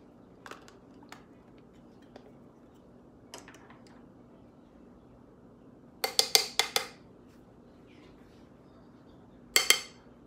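Hard makeup tools clinking against each other as they are handled. There are a few faint clicks, then a quick run of about five ringing clinks some six seconds in, and two sharp clinks near the end.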